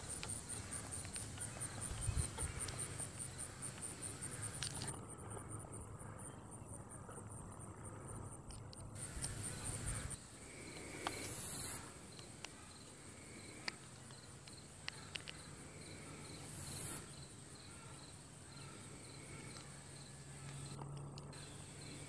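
Insects trilling in fast, even pulses: a high-pitched trill for the first half, a lower one in the second half. Two brief rushing swells of noise, about halfway through and again a few seconds later, are the loudest sounds.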